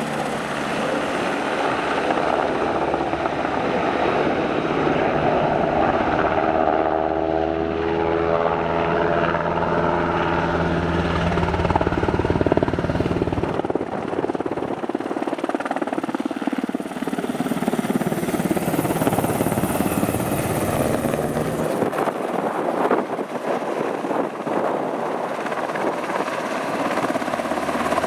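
Sikorsky S-70 Black Hawk helicopter flying low overhead: loud, steady rotor and turbine noise, with a sweep falling in tone about a quarter of the way through.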